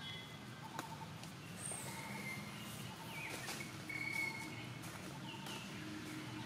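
Outdoor ambience with short, high chirping calls scattered through it, some falling in pitch, over a low steady background noise; a sharp click about a second in.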